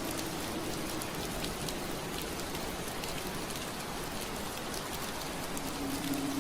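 Steady rain on window glass: an even hiss dotted with fine ticks of single drops. A low steady hum fades out about a second in and comes back near the end.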